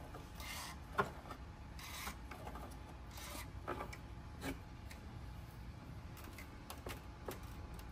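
Adjustable pliers gripping and turning an oil filter housing cap to tighten it, with short scraping rasps and scattered light clicks; a sharp click about a second in is the loudest.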